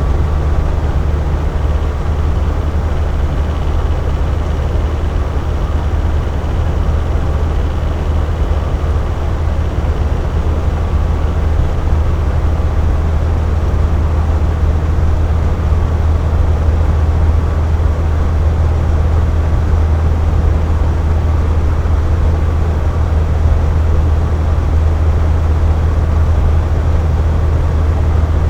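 Air conditioner running steadily: a constant low hum under an even rushing noise, with no change.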